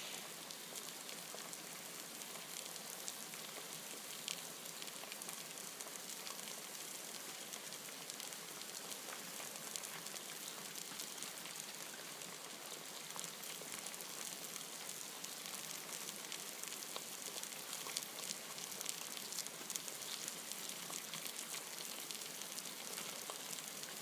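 Food cooking over heat, sizzling steadily with many fine crackles.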